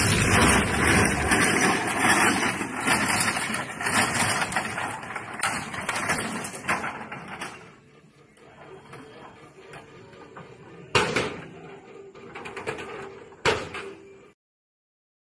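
Loud, steady noise from a light piston helicopter whose main rotor blades have broken apart, still running on the ground. The noise falls away sharply about eight seconds in, leaving a low rumble with two sharp knocks.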